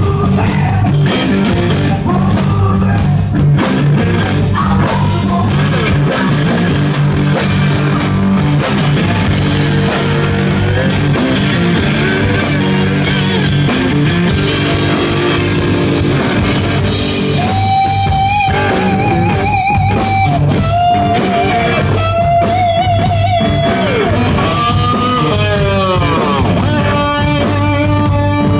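Live rock band: electric guitar over drums and a steady low backing. From about two-thirds through, the lead guitar plays held notes with wide vibrato, then notes that swoop down in pitch and a run of fast repeated notes near the end.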